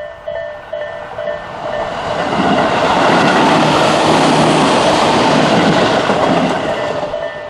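A train passing over a level crossing: a loud rush of wheels on rail builds about two seconds in, holds, and fades near the end. Around it, the crossing's Isesaki-type electronic warning bell rings in a quick repeating ding, nearly drowned out while the train goes by.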